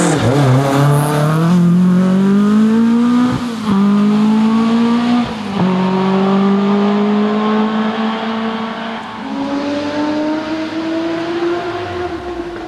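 Historic rally car's engine under hard acceleration, its pitch climbing through the gears with quick upshifts about three and a half and five and a half seconds in and another near nine seconds. It fades gradually as the car pulls away.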